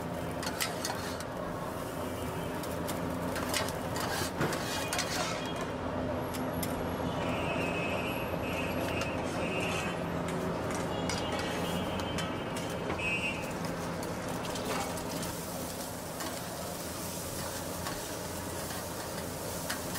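Busy street-food stall ambience: a steady background hum and din with scattered clinks and clicks of utensils and containers.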